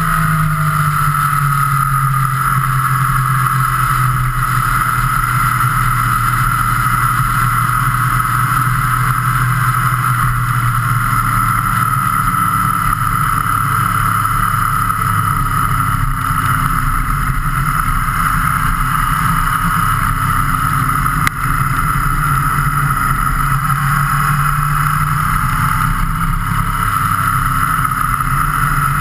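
Engine of the vehicle carrying the camera, running steadily at road speed, its pitch drifting slightly with the throttle, under a constant rush of wind on the camera.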